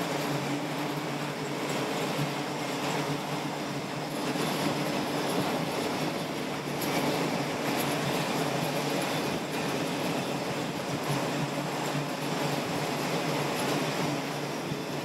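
Steady roar of jet engines running on an aircraft carrier's flight deck, with a thin high whine over it.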